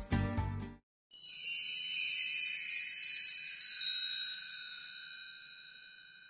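Background music stops about a second in. Then a shimmering, bell-like chime sound effect rings out, a cluster of high tones sweeping downward and fading away over about five seconds.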